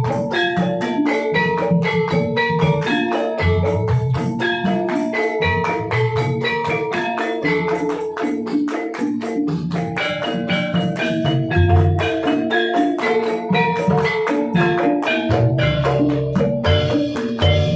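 Gamelan ensemble playing: bronze metallophones struck in quick interlocking patterns with ringing tones, over irregular deep drum strokes.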